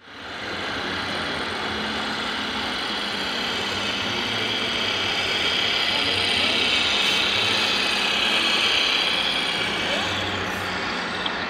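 Steady din of a busy indoor hall: a murmur of voices over a low, even engine-like hum, swelling somewhat midway.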